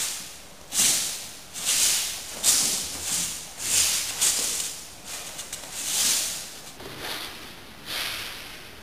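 Wooden jo staff swished fast through the air, a string of airy whooshes that come about one every half second to a second and vary in strength.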